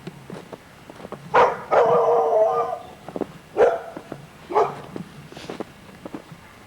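A dog barking several times: a bark followed by a longer drawn-out call, then a couple more short barks.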